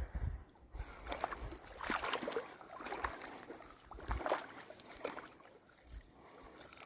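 Irregular light knocks and clicks, with low thumps and faint water sloshing: fishing gear being handled while a fish is played on the line.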